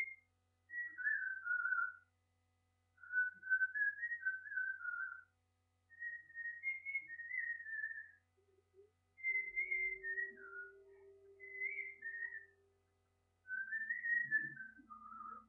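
A man whistling a tune, in short melodic phrases of a second or two with brief pauses between them.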